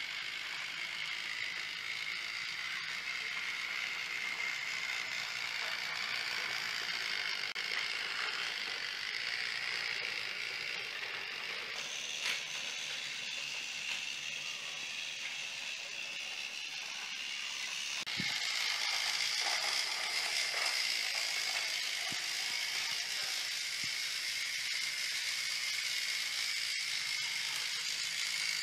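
Battery-powered TOMY Plarail toy locomotive running on plastic track: a steady high-pitched whine from its small electric motor and gearbox, with the rattle of the wheels on the track. It grows louder about two-thirds of the way in.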